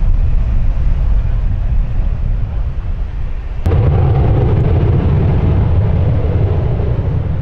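Wind buffeting the microphone over the low rumble of airliner engines. About halfway through there is a sudden click and the rumble jumps louder and fuller, holding steady after that.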